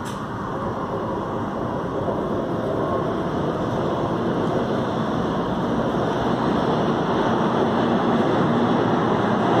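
Subway train approaching through the tunnel: a steady rumble that grows louder.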